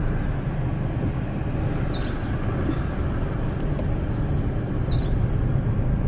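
Steady low rumble of a car running, heard from inside the cabin, with a short high chirp about two seconds in and again about five seconds in.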